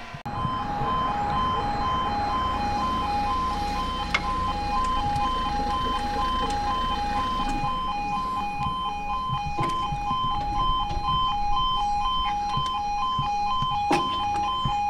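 Railway level crossing alarm sounding: a two-tone warning that alternates steadily between a higher and a lower note, over a low background rumble.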